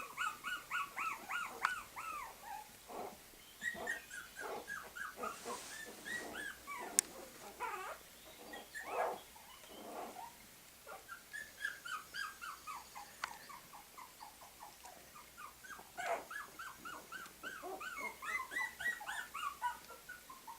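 Puppies whimpering and crying: short, high cries that fall in pitch, coming in quick runs of several a second with brief pauses between runs.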